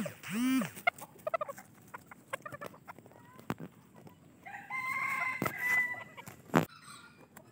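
Serama bantam chickens calling: two short arching clucks right at the start and scattered short notes, then a rooster crowing for about a second and a half in the second half. A sharp knock comes near the end.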